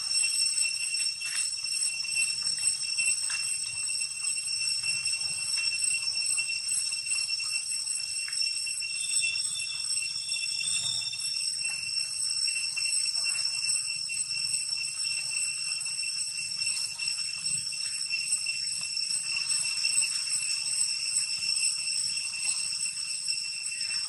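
Steady, high-pitched ringing drone of cicadas, unbroken and unchanging throughout, with a faint low rumble beneath.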